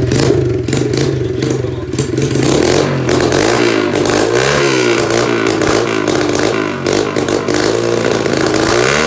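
SSR 125 pit bike's single-cylinder four-stroke engine running through a straight pipe, revved up and down several times. It is still cold and is getting too much fuel from an oversized Mikuni carburettor, so it floods itself and is not running right.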